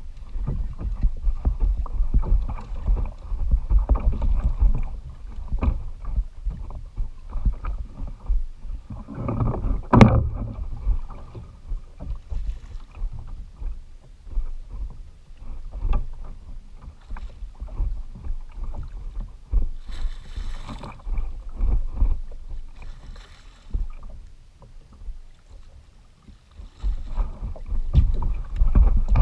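Sea water lapping and sloshing against the plastic hull of a Hobie Outback kayak, with wind buffeting the action camera's microphone. A single sharp knock on the hull about ten seconds in.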